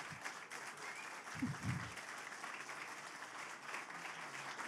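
Audience applauding: a steady patter of many hands clapping, with a brief voice about a second and a half in.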